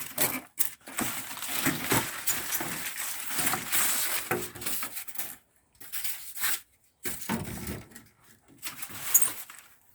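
Washing-machine packaging being handled and pulled off, rustling and crackling in irregular bursts with a few brief pauses.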